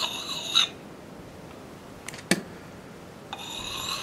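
Axe puck rubbed in small circles on the steel bit of a Council Tool boys axe: a high-pitched scrape with a pulsing rhythm that stops about half a second in. One sharp click comes a little after two seconds, and the steadier scrape starts again near the end.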